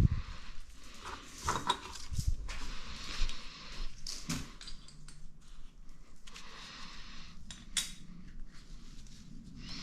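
Irregular light metallic clinks and taps of small engine hardware being handled: a steel washer fitted onto a stud and nuts set in place.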